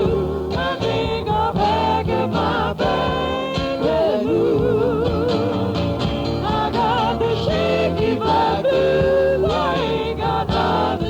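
Music: a song with a voice holding long, wavering notes over a steady accompaniment.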